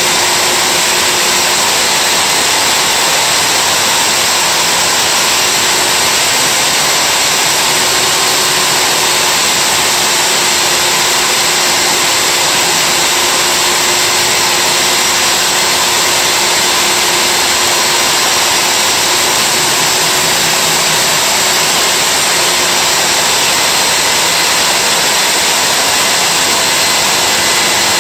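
Wall-mounted Milwaukee core drill running steadily under load as the core bit cuts into the masonry wall: a loud, even motor whine over grinding noise.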